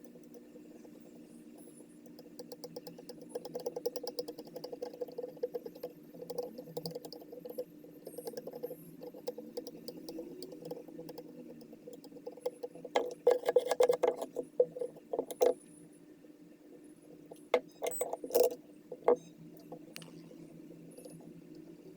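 Fine, rapid scratching of a laptop motherboard being scrubbed clean of corrosion, over a steady low hum. Two short bursts of metallic clicking and clinking follow, about halfway through and again a few seconds later.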